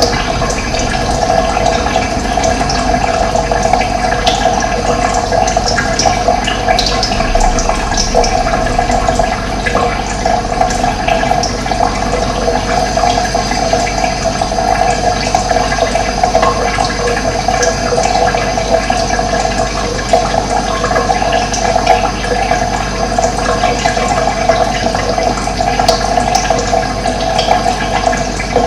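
Running water, a steady rushing flow with a strong mid-pitched band, broken only by a few faint, short high sounds.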